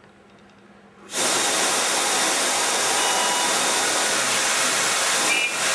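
Concept Smoke Screen security fog generator firing: a loud hiss of fog jetting out starts suddenly about a second in and runs on steadily, with a brief dip near the end.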